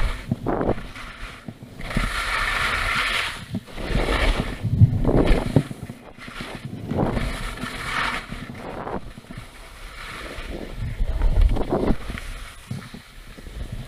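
Skis hissing and scraping over packed snow through a run of turns, the noise swelling and fading several times, with wind buffeting the microphone.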